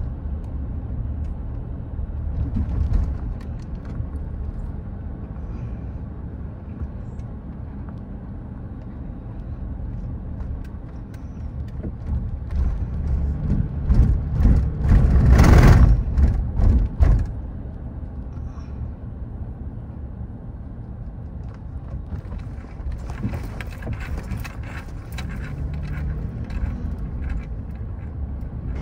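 Road and engine noise of a moving car heard from inside the cabin: a steady low rumble, swelling to a loud rushing noise for a few seconds about halfway through.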